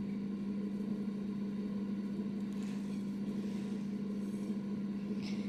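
A steady low hum, with faint scraping of a knife pushing diced mortadella off a plate into a bowl about three seconds in.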